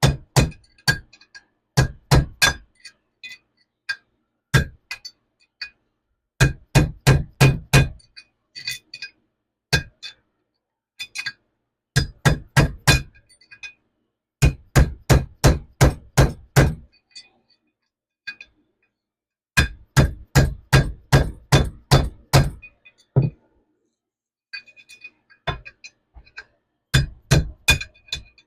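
Hammer striking a flathead demolition screwdriver to drive a bearing race out of a Dexter trailer axle hub: runs of sharp metallic blows, about three or four a second, with short pauses between the runs and a ringing after each hit.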